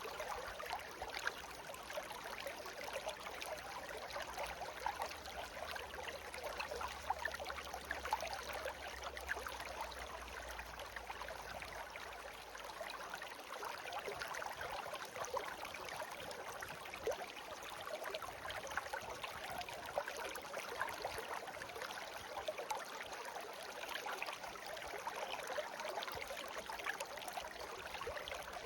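Shallow babbling brook, water running and gurgling steadily with a dense patter of small splashes.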